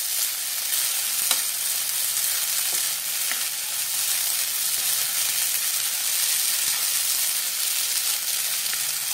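Sabudana khichdi (soaked sago pearls with crushed peanuts and boiled potato cubes) sizzling steadily in a non-stick kadhai while a wooden spatula stirs it, with a couple of light taps of the spatula against the pan. This is the stir-cooking stage, letting the sago cook through.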